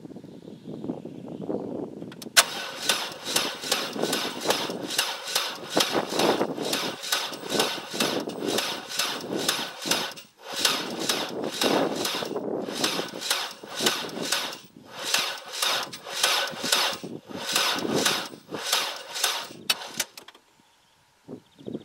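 A small car's starter motor cranking the engine in a steady rhythm, pausing briefly around the middle and stopping near the end. The current comes from a sulfated, failing 12 V truck battery whose voltage sags to about 8.5 V under the cranking load, which the owner takes as a sign that the battery is no longer up to spec.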